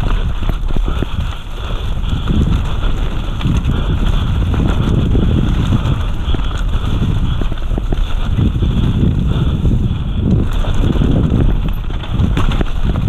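Mountain bike descending a dirt forest trail at speed: steady low wind and tyre noise on the bike-mounted microphone, with frequent clicks and rattles as the bike hits bumps, roots and rocks.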